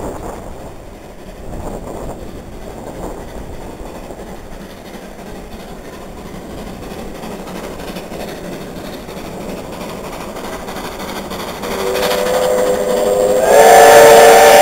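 NZR Ab class 4-6-2 steam locomotive approaching, its exhaust chuffing as it works its train. About twelve seconds in its whistle starts to blow, several notes sounding together, and near the end it becomes loud and steady.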